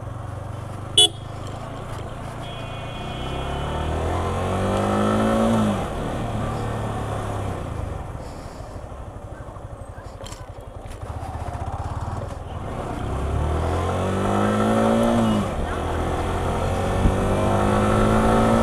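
Yamaha R15 V4's single-cylinder engine accelerating on the move: the revs climb and drop away at an upshift twice, then climb again near the end.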